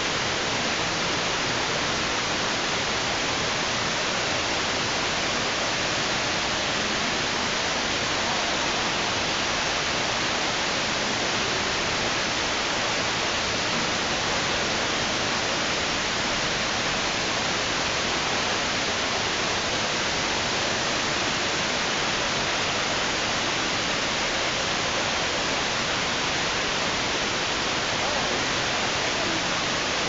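Man-made rock waterfalls: a steady, even rush of falling water with no change in level.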